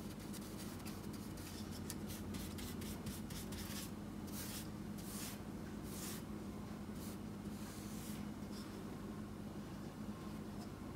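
Paintbrush bristles brushing paint onto a countertop in repeated short, faint strokes, touching up scratched spots in the paint. A steady low hum runs underneath.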